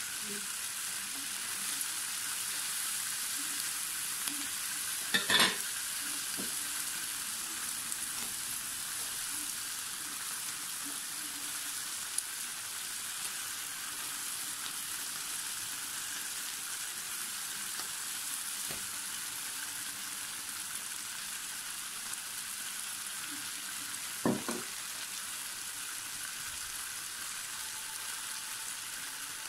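Pork ribs sizzling steadily on a hot electric grill plate while they are basted with teriyaki sauce. Two brief knocks, one about five seconds in and one about twenty-four seconds in.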